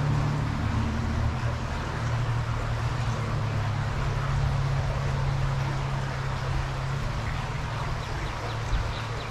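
Small stream's water running steadily, over a low steady drone that eases off somewhat about two-thirds of the way through.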